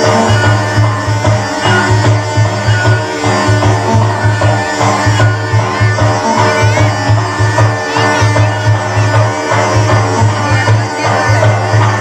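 Loud Indian folk music with a steady, heavy drum beat and melodic instruments, accompanying Maharashtra's Songi Mukhota masked folk dance.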